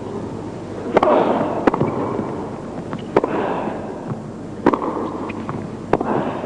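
Tennis rally: a racket strikes the ball with a sharp pop every second or two, with fainter ball bounces between, each hit ringing briefly in the arena.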